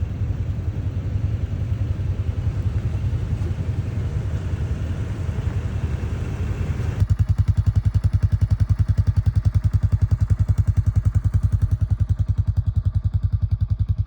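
Motor vehicle engine running steadily. About halfway through the sound cuts abruptly to a louder engine note with a fast, even pulsing.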